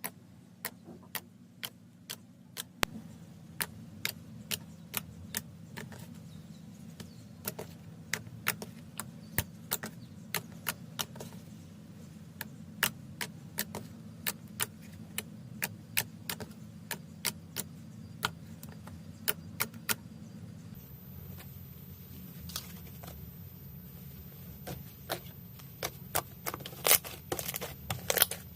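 Slime being played with, giving sharp clicks and pops, roughly one or two a second and coming faster near the end, over a steady low hum. A faint high whine joins about two-thirds of the way through.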